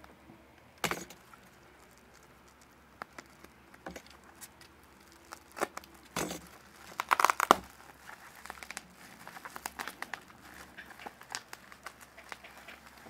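Plastic bubble wrap crinkling and crackling as it is handled and unwrapped, in scattered bursts, the loudest about seven seconds in.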